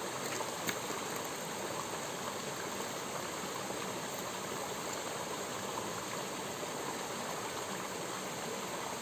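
A small rocky stream running over a low cascade into a pool: a steady rush of splashing water.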